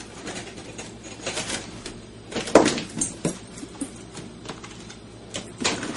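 Small dog tugging and biting at a baguette on a linoleum floor: irregular scrapes, crackles of crust and knocks, the loudest a little over two and a half seconds in.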